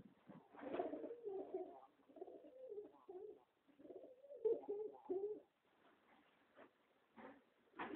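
Domestic pigeons cooing in several wavering phrases through the first five seconds or so, then a pause and a couple of short taps near the end.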